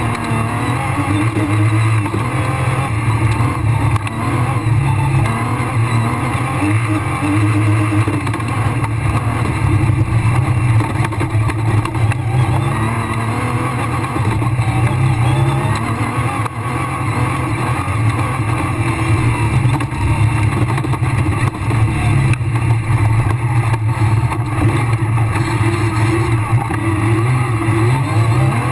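Rally car engine heard from inside the cockpit at full speed on a dirt stage, revving up and dropping back again and again through the gears.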